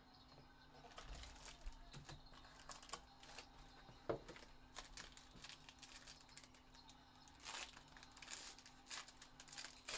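Faint rustling and soft clicks of a cardboard trading-card box being opened and a foil-wrapped pack pulled out, with one sharper knock about four seconds in and a burst of foil crinkling near the end.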